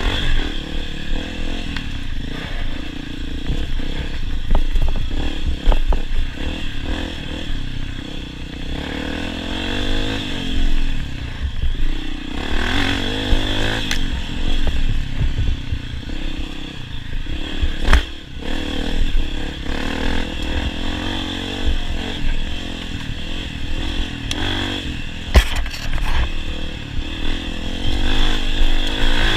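Honda CRF250F dirt bike's single-cylinder four-stroke engine revving up and falling back again and again with the throttle while riding rough trail, with clattering and a couple of sharp knocks from the bike over the terrain.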